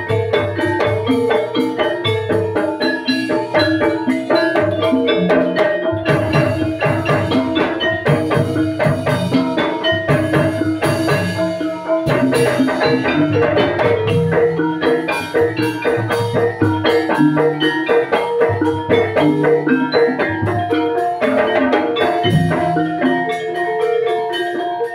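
Javanese gamelan ensemble playing a gending in pelog tuning: bronze metallophones and gong-chimes ringing in a dense run of struck notes, with kendang drum strokes and low gong tones underneath.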